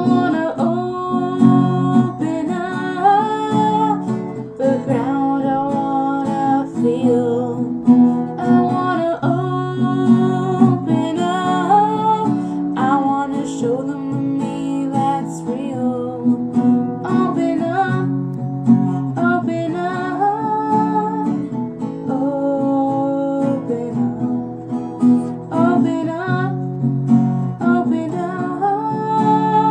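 A song on strummed acoustic guitar, with a singing voice carrying a melody but no clear words.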